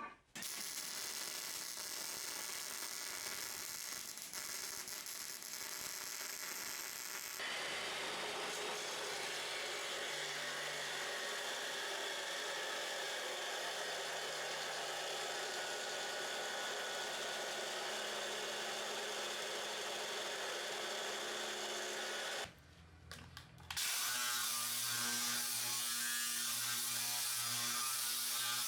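MIG welder arc crackling steadily in long runs, with an abrupt change in the sound about seven seconds in and a short break a little over a second long near the end.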